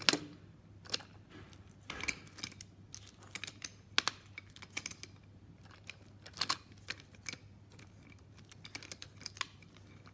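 Wooden toy trains pushed slowly by hand along wooden track, giving irregular small clicks and clacks from the wooden wheels and couplings.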